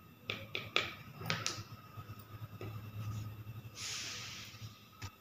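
Cloth being handled on a wooden table: a few light taps and clicks in the first second and a half, then a brief rustle of silky fabric being moved and folded about four seconds in.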